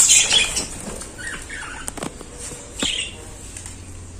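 Pet budgerigars in a cage chirping and chattering in short, high squeaky calls, with a few sharp clicks.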